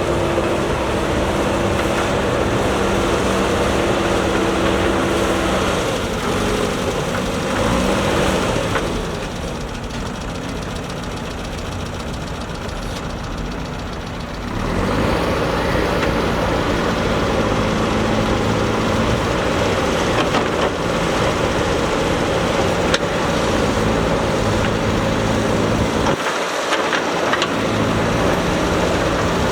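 A JCB backhoe loader's diesel engine running at work. It drops quieter about nine seconds in and picks back up about six seconds later.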